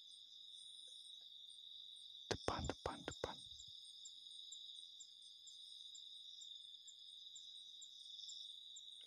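Night insect chorus: a steady high-pitched cricket trill, with another insect chirping at an even, regular pace above it.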